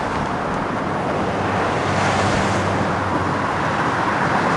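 Steady roar of heavy freeway traffic on Seattle's Alaskan Way Viaduct, an elevated double-decked highway, with a vehicle engine's hum swelling about two seconds in.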